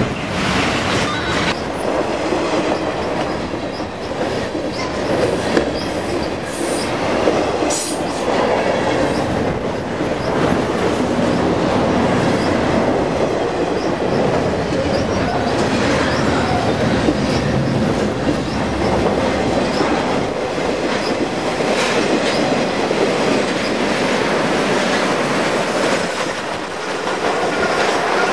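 Freight cars of a CP Iron Highway intermodal train, highway trailers on low flatcars, rolling steadily past at close range: a continuous rumble with the wheels clattering over rail joints.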